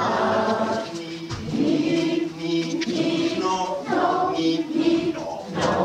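Singing with long held notes over music, in an operatic style.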